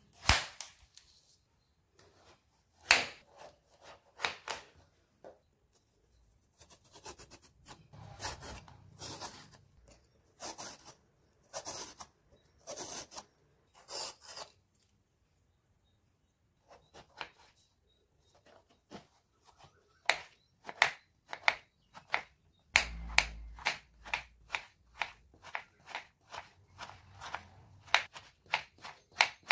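Knife and peeler working a bottle gourd: a few cuts, then a run of scraping peeler strokes along the skin, then, after a short pause, steady knife chops through the gourd onto a bamboo cutting board, about two a second.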